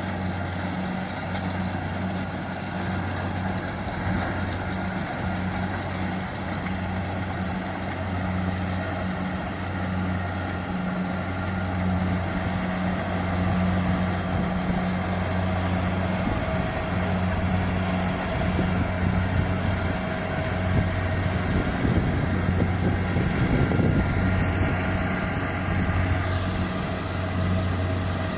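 Kubota DC-70 Plus combine harvester's diesel engine running with a steady low hum. Midway through it grows a few decibels louder and rougher for several seconds, then settles back.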